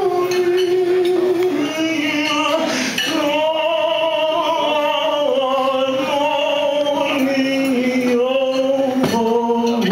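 A male cantor singing a Hebrew liturgical melody in cantorial style, holding long notes that step downward in pitch.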